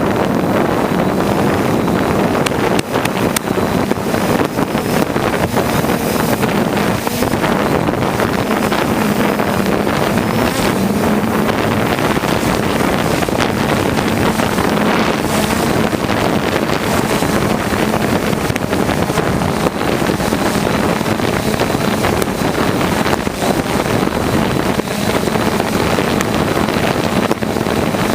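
Piston engine running steadily in flight with a constant low drone, under heavy wind rushing over the microphone.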